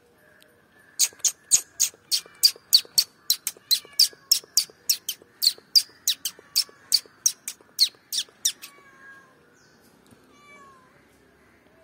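Three-striped palm squirrel giving its alarm call: a rapid run of sharp, high chirps, about three or four a second, starting about a second in and stopping about eight and a half seconds in.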